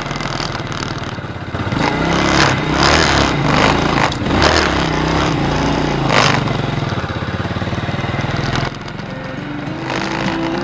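Honda Super Cub's small single-cylinder engine running and revving, its pitch rising and falling in surges, then cut off abruptly about three-quarters of the way through.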